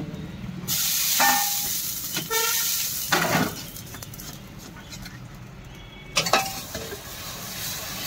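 Hot flat dosa griddle (tawa) sizzling and hissing as batter is poured on and spread into a thin dosa, with a few short clinks and knocks of steel utensils.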